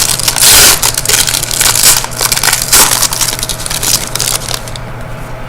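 Foil wrapper of a hockey card pack crinkling and crackling as it is handled and torn open, loudest in the first three seconds, then softer rustling.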